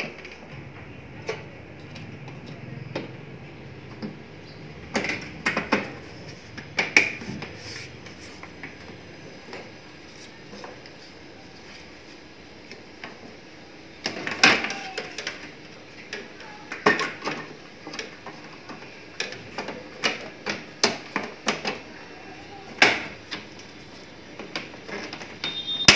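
Scattered plastic clicks and knocks from an HP M1005 MFP laser printer's casing being handled and a rear cover panel fitted and pressed into place, the loudest about fourteen seconds in and again near the end.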